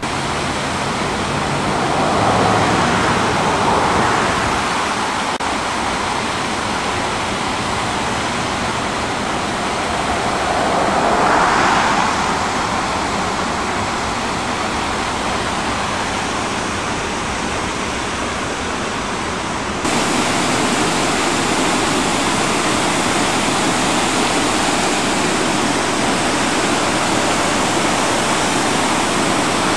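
A flood-swollen river pouring over a concrete dam: a steady rush of falling water. It swells briefly twice in the first half and steps up suddenly about twenty seconds in.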